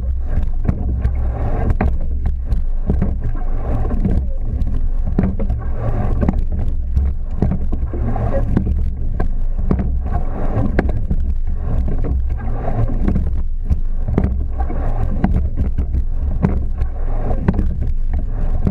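Racing rowing shell under way at race pace: wind buffeting the boat-mounted camera's microphone and water rushing along the hull, with the frequent clicks and knocks of oars and rigging.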